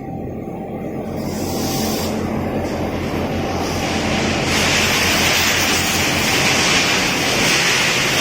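Factory machinery running: a steady low hum under a loud hiss that swells about four seconds in.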